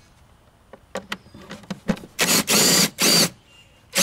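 Cordless impact driver running a screw out of the DME cover on a BMW E46, in three short loud bursts about two seconds in. A few light metal clicks of the bit going onto the screw come just before.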